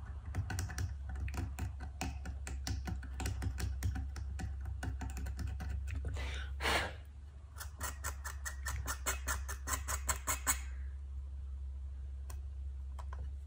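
Craft knife blade picking and scraping under lifted veneer, a rapid run of small ticks and scratches as old putty is dug out, with one longer scrape about halfway through. The picking stops a few seconds before the end, leaving a steady low hum.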